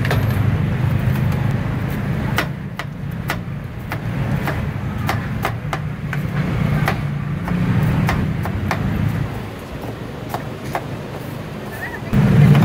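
Two metal scrapers chopping cookies on the steel cold pan of a rolled ice cream stall, giving sharp, irregular clicks and taps of metal on metal. Under them runs a steady low rumble.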